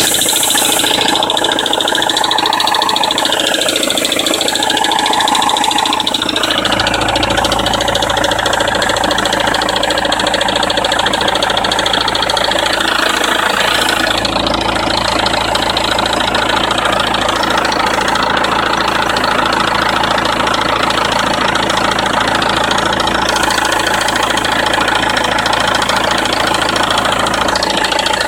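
BMW E90 320d's M47 four-cylinder turbodiesel engine idling on a cold start with a rattle. The note wavers for the first six seconds or so, then settles to a steady idle.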